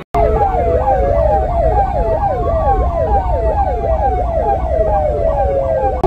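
Electronic police-style siren blaring: a fast yelp sweeping up and down about three times a second over a slower wail that climbs for a couple of seconds and then falls back. It cuts in suddenly at the start, with a low traffic rumble underneath.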